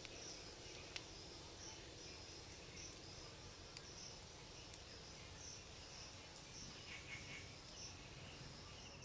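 Faint insects chirping in a steady rhythm, about two chirps a second, with a soft click about a second in.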